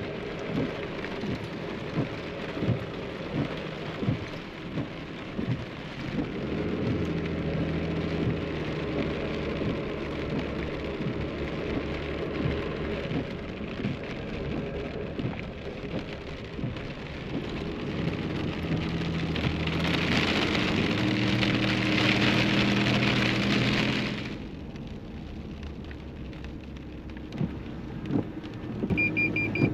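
Heavy rain on a car being driven, over the engine's low hum, with scattered knocks in the first several seconds. A louder hiss swells for a few seconds past the middle and then drops away. A car's beeping chime starts just before the end.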